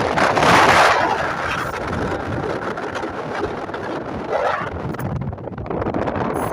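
Strong wind buffeting the microphone in gusts, loudest about half a second in and again around four and a half seconds.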